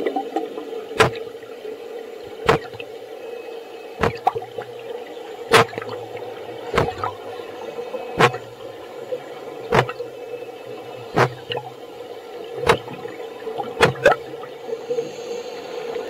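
Underwater sound of a scuba diver blowing bubble rings: sharp pops about every one and a half seconds as puffs of air are pushed out, over a steady hum.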